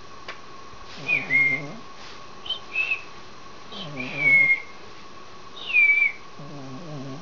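A sleeping pet snoring: each slow breath gives a low, rattly snore and a short high whistle that falls in pitch, about every two and a half seconds.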